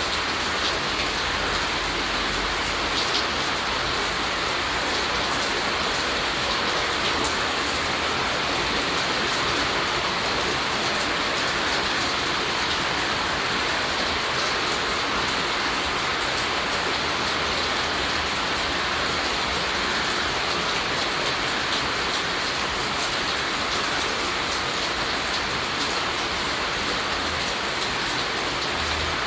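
Steady rain falling, a dense even hiss with many fine drop ticks.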